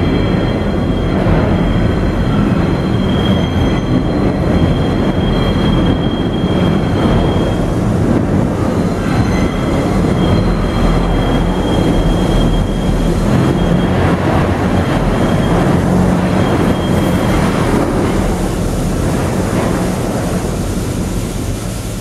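R62A subway train on the 1 line rolling into the South Ferry loop station, with a heavy steady rumble of wheels on rail. A high wheel squeal comes and goes over the first two-thirds or so, from the wheels grinding through the loop's tight curve.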